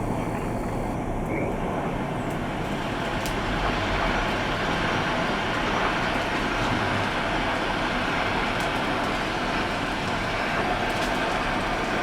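Electric arc welding: a steady noisy hiss with a few faint clicks.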